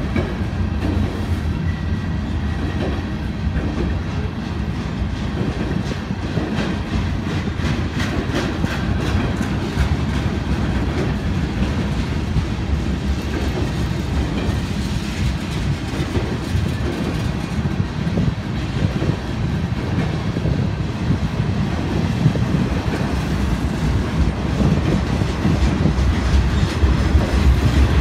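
Freight train of boxcars rolling past, a steady rumble with wheels clicking over the rail joints, getting a little louder near the end.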